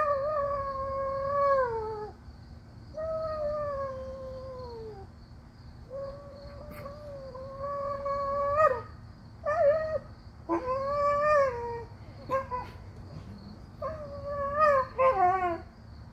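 A dog howling and whining in a string of long, drawn-out calls, each holding one pitch and dropping off at the end. Toward the end they break into shorter, choppier whines and yips.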